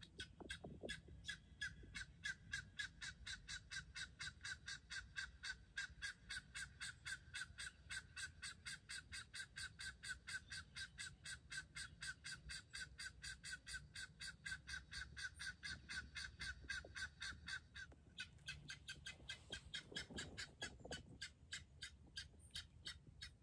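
Guineafowl calling: a rapid, even chatter of short notes, about five a second, that keeps going without a break.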